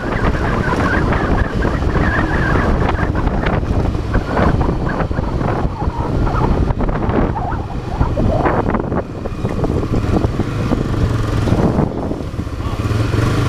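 Honda Twister motorcycle's single-cylinder engine running while riding along a street, under steady wind noise on the microphone.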